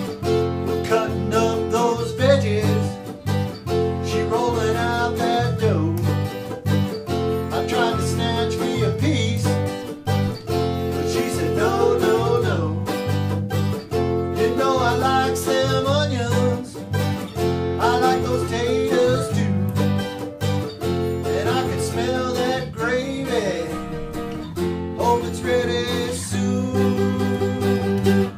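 Band playing a song on strummed acoustic guitar, with a melody line sliding between notes above the chords.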